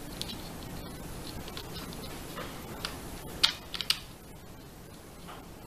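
Small clicks and scrapes of a metal detector's search coil cable plug being seated in the control box jack and its retainer ring screwed tight by hand, with a sharper cluster of clicks about three and a half seconds in.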